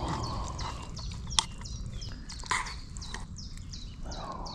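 Small birds chirping in a quick, continuous run of short falling notes, over a low steady rumble. A couple of sharp knocks of a utensil against the cooking pot as it is stirred, about a second and a half and two and a half seconds in.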